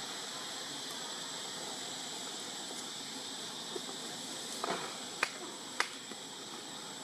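Steady high drone of forest insects, with three sharp clicks about half a second apart in the second half.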